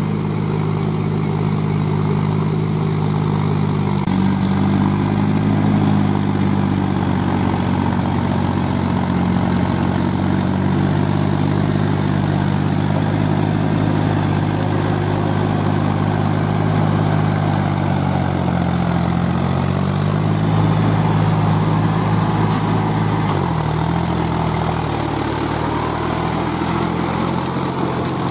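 Powertrac Euro 45 Plus tractor's diesel engine running steadily under load while it drives an 8-foot rotavator through soil. Near the end the engine note dips and settles a little lower.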